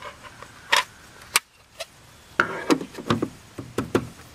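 Plastic drip tray and grate of a Keurig K55 coffee brewer being fitted back onto the base. A couple of sharp plastic clicks come first, then a busier run of knocks and rattles in the second half.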